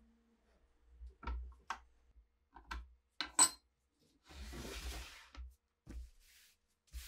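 Workbench handling noises: a string of sharp metal clicks and clinks as a knife is handled in a steel bench vise. After that comes about a second of rustling, then a few dull thumps.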